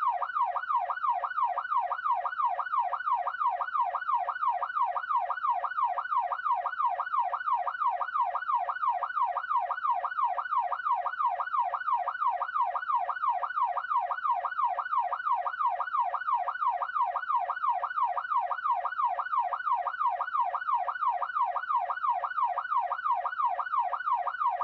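Electronic police siren in a fast yelp, its pitch sweeping up and down about twice a second without a break.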